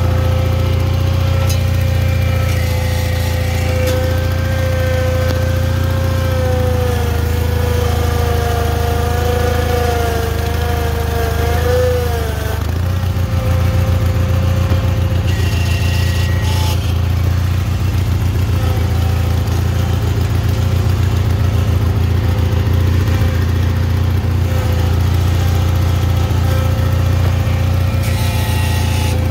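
International Cub Cadet 782 garden tractor's Kohler twin-cylinder engine running steadily under load while plowing. A high whine rides over its rumble, wavers and dips, then drops away about twelve seconds in.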